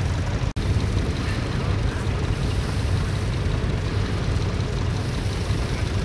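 Wind buffeting the microphone in an open field: a steady low rumble, broken by a split-second dropout in the sound about half a second in.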